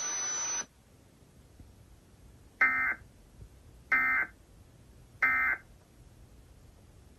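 Emergency Alert System end-of-message data bursts: three identical short, shrill warbling digital bursts about a second and a quarter apart, signalling that the test message is over. Before them, a steady hiss cuts off about half a second in.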